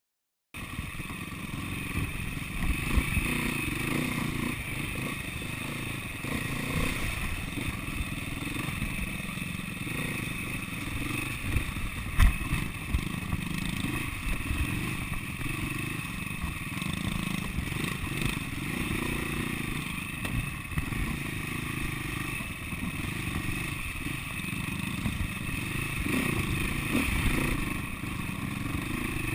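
SWM 300RS four-stroke single-cylinder enduro motorcycle running at low trail speed, the throttle rising and falling, with the bike rattling over rough ground. A sharp knock about twelve seconds in is the loudest sound.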